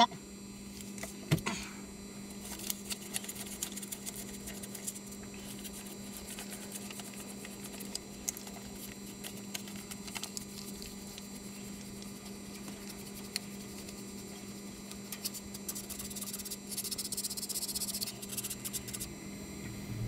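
Small clicks and rustling as a dollar bill is rubbed along a dirty furnace flame sensor rod to clean it, with a longer stretch of scratchy rubbing near the end. A steady low hum runs underneath.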